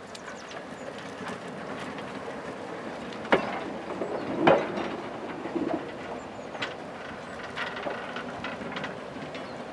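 Railway train rolling on track: a steady rumble with irregular clanks and knocks, the loudest about three and a half and four and a half seconds in.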